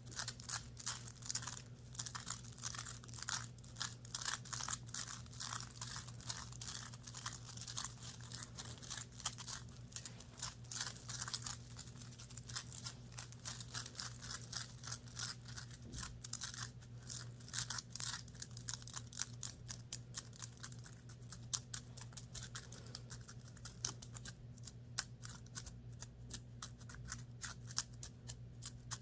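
Close-miked scratching and rubbing on the fabric of a top, a rapid run of many short scratchy strokes that thins out a little near the end, over a steady low hum.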